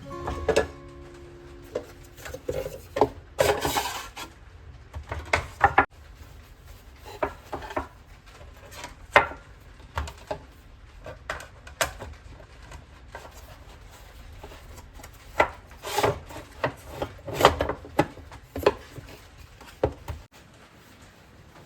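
Household objects being handled on a hard surface: scattered light knocks, taps and clicks with a few short scraping or rubbing sounds. The knocks grow busier toward the end, then stop.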